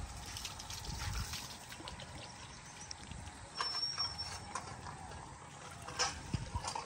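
Water trickling and pouring as rice is washed by hand, with a few light knocks.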